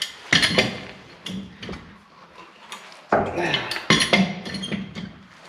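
Metal clinks and knocks from hand tools and metal pipe fittings being worked loose and handled, a few scattered strikes and then a busier run of clatter a little past the middle.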